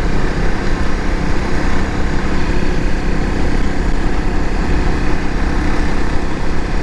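Off-road motorcycle engine running steadily while cruising, mixed with a heavy, even rush of wind and road noise on the handlebar-mounted microphone.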